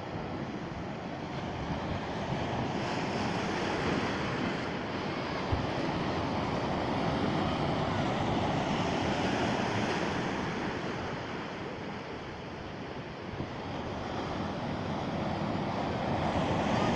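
Black Sea waves surging and washing, the rush swelling and easing in slow surges, with wind buffeting the microphone.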